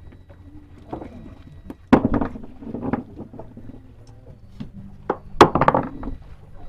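A fishing boat's engine running steadily at idle, with two loud sudden noisy bursts, one about two seconds in and another a little past the middle.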